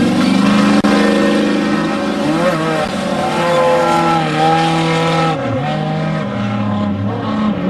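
Off-road desert race vehicle engine running loud at high revs, its pitch rising and dropping several times, with a marked dip about six seconds in.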